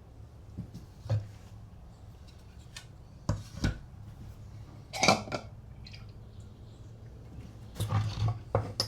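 Metal parts of an antique coffee grinder clinking and knocking as they are handled and fitted together. A few separate knocks come first, then a quicker run of clinks near the end.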